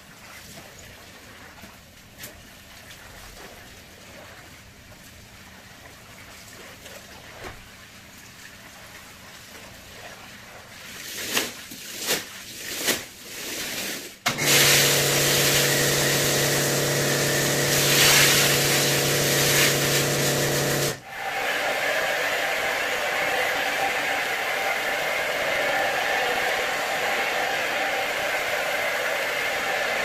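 Rug-cleaning equipment at work: a few short hissing spray bursts, then a motor-driven machine running with a loud, even hiss for about six seconds that cuts off suddenly. A steady rushing hiss follows and carries on.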